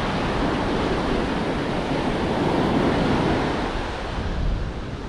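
Ocean surf breaking and washing up a sandy beach, a steady rush of noise, with wind rumbling on the microphone.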